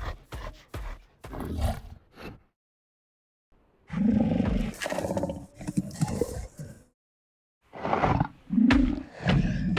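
Pyroraptor dinosaur vocal sound effect, designed from cougar and other big-cat growls: a quick run of short grunts, a pause of about a second, then a long growling roar, and after another pause a second growling roar near the end.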